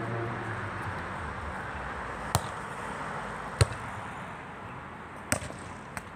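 A football being kicked and bouncing on stone paving: four sharp thuds spread over a few seconds, the loudest a little after three and a half seconds, over background noise that slowly fades.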